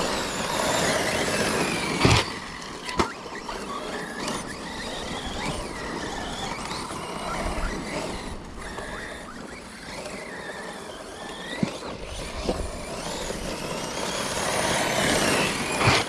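Electric RC cars' brushless motors whining, rising and falling in pitch as they speed up and slow down, with sharp knocks about two and three seconds in and again near the end.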